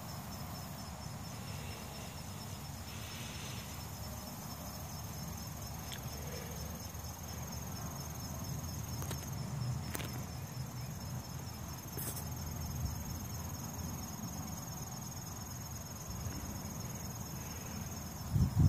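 Insects trilling steadily at a high pitch with an even pulse, over a low rumble; a few loud knocks near the end.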